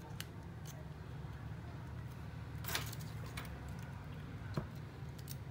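A few faint clicks and light scrapes from a plastic pry tool and fingers working at the circuit board and flex-cable connectors of an opened Samsung Galaxy Tab E tablet. The loudest cluster comes about halfway through. A steady low hum runs underneath.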